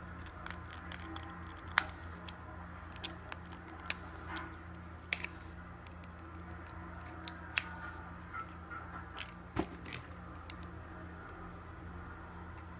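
Small sharp clicks and taps of metal tools and small parts being handled on an iPhone 6s during a screen repair, irregular and a dozen or so in all, over a steady low electrical hum.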